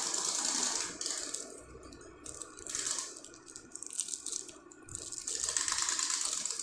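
Crinkling and rustling of a plastic gift wrapping as it is unwrapped by hand. It comes in bursts, loudest at the start and again in the last second and a half.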